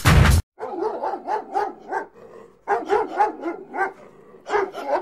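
Music cuts off about half a second in, followed by a dog barking in quick runs of several barks with short pauses between the runs.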